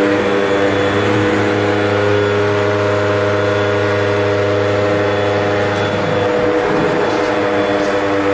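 Vacuum cleaner running steadily at full power, a loud, even motor hum and whine.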